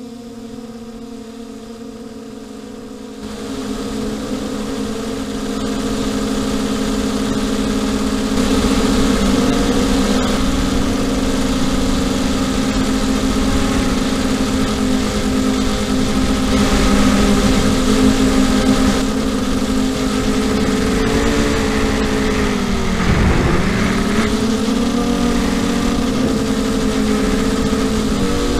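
FPV quadcopter's electric motors and propellers buzzing, picked up by its onboard camera. The steady hum gets louder a few seconds in, and about two thirds of the way through its pitch dips sharply and climbs back.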